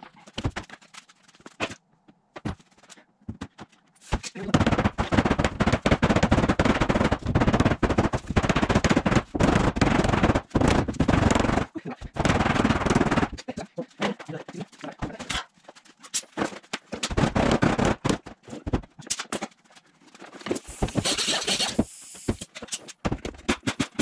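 Rapid clattering run of sharp impacts from tool work on the camper's sheet-metal siding, coming in long stretches of several seconds with short breaks, after a few scattered clicks at the start.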